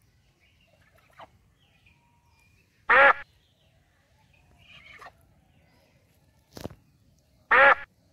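Domestic duck quacking: two loud single quacks about four and a half seconds apart, with a short sharp click between them.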